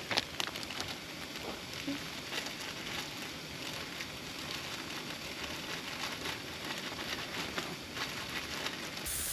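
Rain pattering steadily, with many small irregular ticks of drops striking nearby surfaces.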